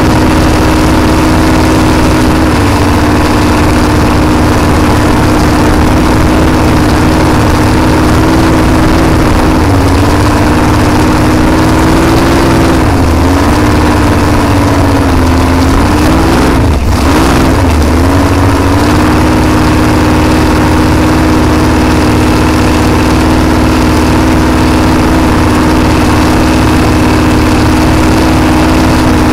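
Supercharged Ford engine of a flat-bottom hot rod boat running steadily while cruising, its pitch dipping briefly three times around the middle before settling back.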